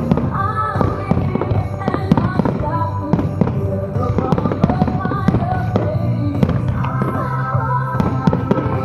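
Fireworks bursting and crackling in rapid, irregular bangs over the fireworks show's music, which holds steady chords throughout.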